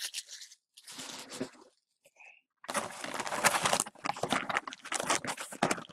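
Crinkling and tearing of the packaging on a retail box of hockey cards as it is handled and opened: a short rustle about a second in, then a run of quick crackly crinkling from about halfway through.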